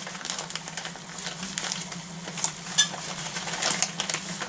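Plastic bag of brown sugar crinkling and rustling in the hands as it is opened and handled, with irregular crackles, over a steady low hum.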